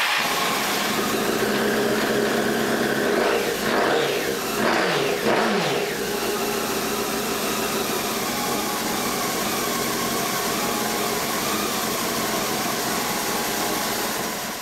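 Honda CBR954RR motorcycle's inline-four engine running just after starting, revved up and down twice about four to six seconds in, then settling to a steady idle.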